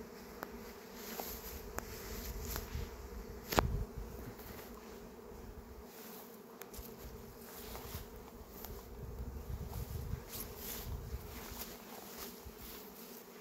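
A swarm of honeybees in flight, a steady hum of many bees buzzing. A single sharp click sounds about three and a half seconds in.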